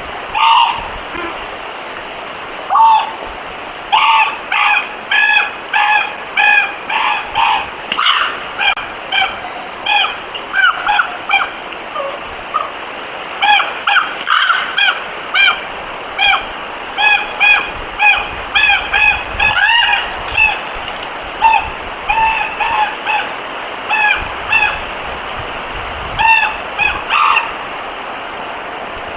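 A flock of geese honking: a rapid, overlapping run of short honks, several a second, that stops shortly before the end, over a steady background hiss.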